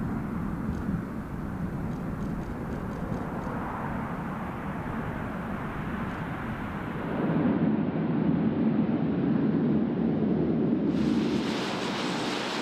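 C-130 Hercules's four turboprop engines running as the aircraft lands on a dirt strip and rolls out. The rumble grows louder about seven seconds in, and a brighter rush comes in near the end.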